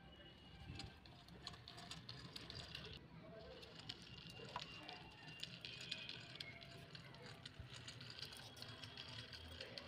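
Faint clicks and rattles of a plastic toy tricycle being handled and pushed by hand.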